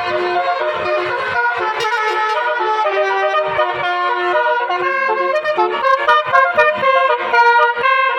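Basuri musical car horn playing a 'telolet' tune: quick brassy, trumpet-like notes, several tones sounding together, changing pitch several times a second.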